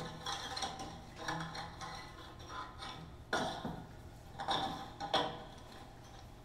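A leafy plant sprig scraped and rubbed across the strings of a violin lying flat, in irregular scratchy strokes with a faint ring from the strings. The strongest strokes come a little past three seconds in and twice near the five-second mark.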